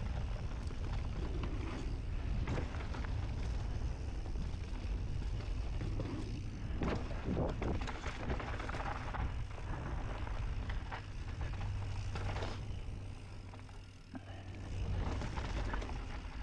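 Mountain bike riding down a dirt trail: steady wind noise on the microphone and tyre rumble, with scattered clunks and rattles as the bike goes over rough ground. It eases off briefly about fourteen seconds in.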